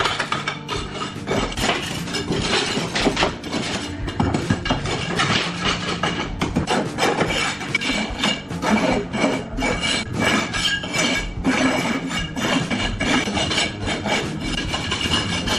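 Steel scraper scraping along the surface and edges of a concrete countertop: quick, repeated, irregular scraping strokes of metal on cement.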